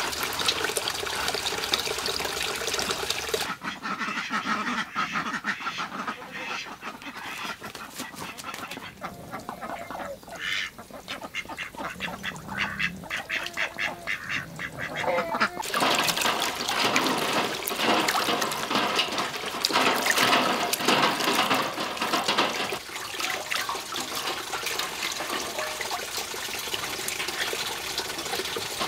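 Domestic ducks quacking in a shallow pond, with water splashing and running.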